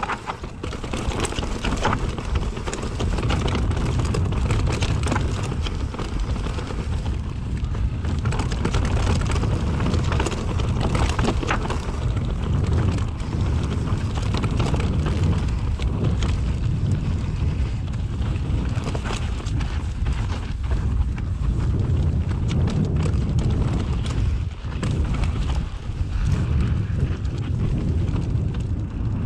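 Mountain bike ridden over a rocky stone trail: a steady low rumble with frequent clatter and knocks as the tyres and frame jolt over the stones.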